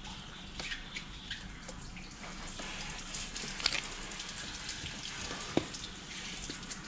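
Water running and splashing, with light clicks and knocks of small objects being handled; two sharper knocks about three and a half and five and a half seconds in.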